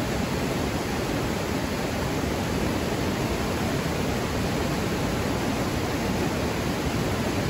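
Rushing water of river rapids, a steady, even noise.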